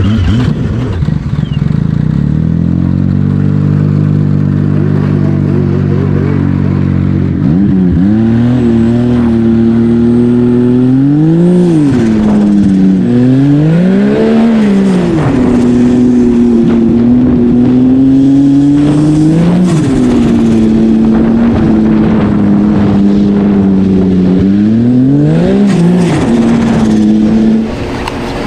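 Turbocharged Yamaha Sidewinder snowmobile's three-cylinder four-stroke engine running under load as the sled pulls away, its pitch climbing slowly at first. It then rises and falls several times as the throttle is opened and eased off, and drops back near the end.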